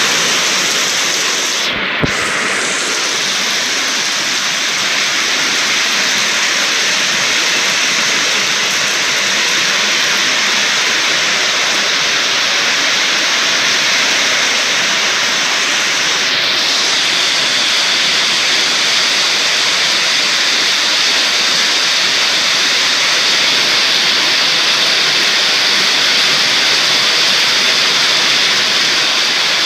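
Heavy rain pouring steadily in a storm, with one short knock about two seconds in.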